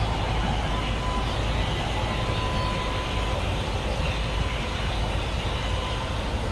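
Steady city street noise: a deep traffic rumble with a faint high whine that comes and goes.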